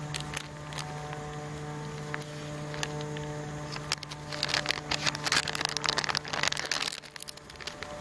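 Crinkling of a drip-coffee sachet's plastic-foil wrapper being handled, loudest from about halfway to near the end, after a few light knocks. A steady low hum runs underneath.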